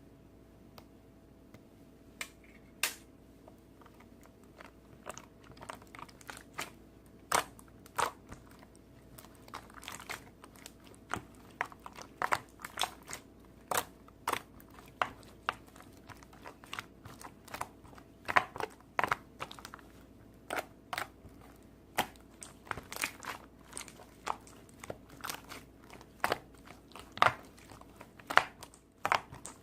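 Slime being squeezed and poked by hand, giving sharp, irregular crackling pops and clicks. They are sparse at first and grow more frequent about ten seconds in.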